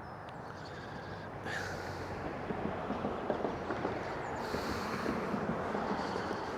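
Steady road traffic noise from a nearby road, growing a little louder about a second and a half in, with a few faint light clicks.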